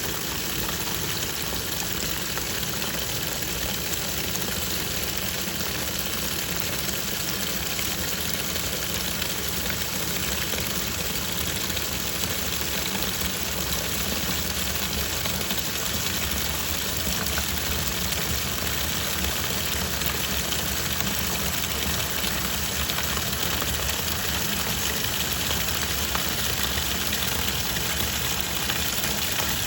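Twin-tub washing machine running, its water churning with a steady noise that does not let up.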